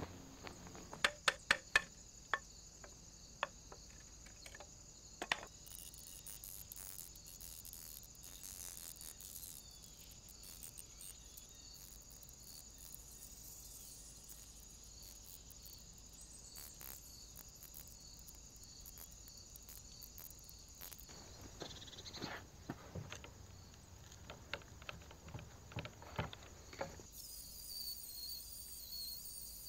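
Insects chirping steadily in a high, evenly pulsing pattern, with a quick run of sharp clicks or knocks about a second in and a few more scattered later on.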